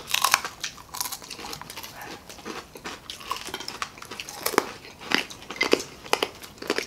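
Several people chewing and biting into crispy deep-fried street food, with irregular crunches and wet mouth smacks.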